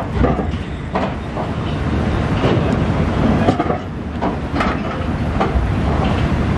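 Cars rolling off a ferry over its steel ramp and the dock's steel deck plates: irregular metal clanks and knocks as the wheels cross the plate joints, over a steady low rumble.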